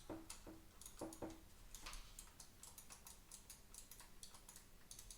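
Corsair gaming mouse's left-button microswitch clicking repeatedly as the button is pressed: a string of faint, sharp clicks, a few a second. The crisp clicks show the re-soldered, lifted switch is working again.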